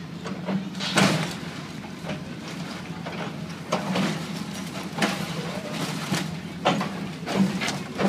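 A John Deere excavator's engine running steadily while its bucket tears into a wooden building, with several sharp cracks and crashes of splintering timber and falling debris.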